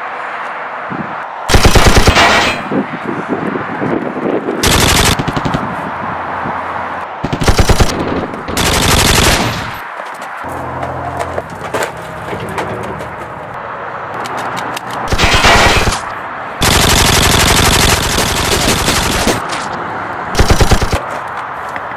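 Machine-gun fire in about seven rapid bursts, mostly under a second each, with one longer burst of about two and a half seconds past the middle.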